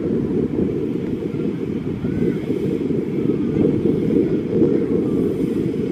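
Wind buffeting the microphone: a steady, heavy low rumble that covers everything else, with only a few faint higher sounds coming through in the middle.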